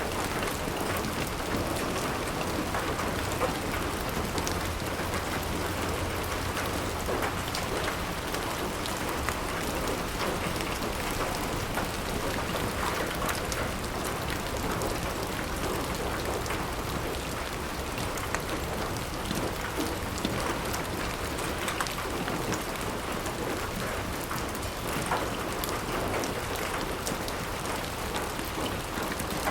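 Heavy rain pattering steadily on a glass window, with many small drop impacts ticking against the pane.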